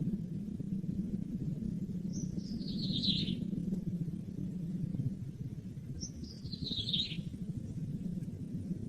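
A bird calling twice, each call a quick run of high notes sliding downward and lasting about a second, over a steady low hum.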